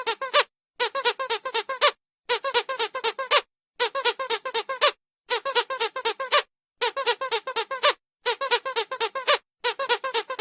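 Squeaky dog toy squeezed rapidly in short runs of about seven or eight squeaks, each run lasting about a second, with brief pauses between runs in an even, repeating rhythm.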